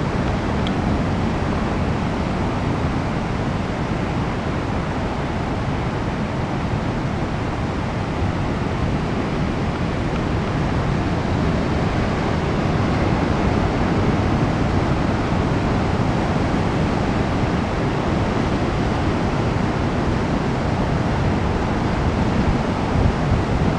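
Ocean surf at king tide: waves breaking and foam washing over the beach and rocks in a steady, unbroken wash of noise, with wind on the microphone adding low rumble that grows near the end.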